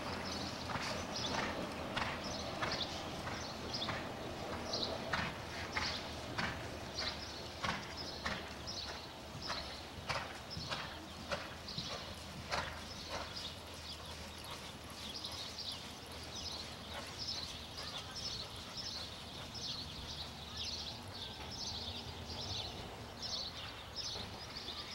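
A horse's hoofbeats in a steady rhythm of about two strikes a second, growing fainter about halfway through.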